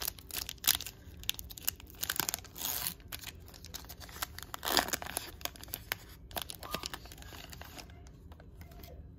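Foil wrapper of a Certified football-card pack being torn open and crinkled: a run of sharp crackles with two longer rips, then quieter handling near the end.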